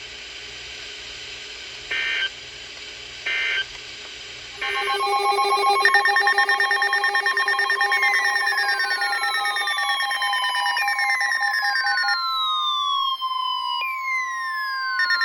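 Emergency Alert System tones between broadcast warnings: two short data-burst chirps over faint hiss, then from about four and a half seconds a loud electronic alert of several steady tones with repeated falling pitch sweeps.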